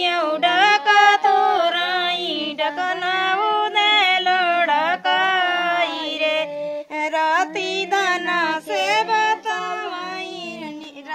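A female voice singing a traditional song unaccompanied, in long phrases that waver and glide between notes.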